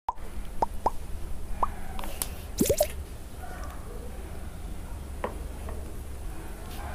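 Liquid dripping and plopping: a few small drips in the first two seconds and a louder plop a little before three seconds. After that comes a soft pour of thick curry gravy from a steel bowl onto rice.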